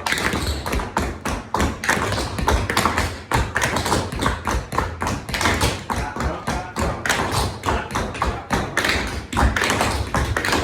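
Tap shoes of a group of dancers striking a hard floor in rapid, rhythmic clusters of metal-plate clicks, mixed with heavier heel thuds.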